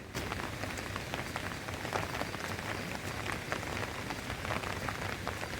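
Steady rain falling, an even hiss scattered with the fine ticks of individual drops.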